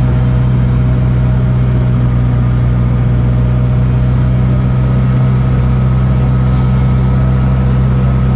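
Amphicar's Triumph four-cylinder engine running at a steady cruise while the car drives through the water, a constant low drone.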